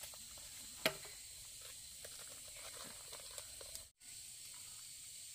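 Faint steady hiss with one sharp knock about a second in and a few light ticks later on.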